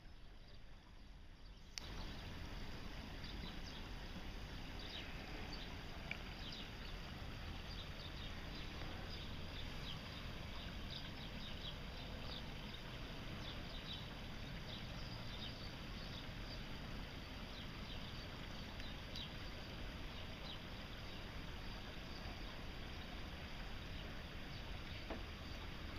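Floodwater from a broken water main running in a shallow stream over ice and snow: a steady rush of flowing water with many small trickles and splashes, louder from about two seconds in.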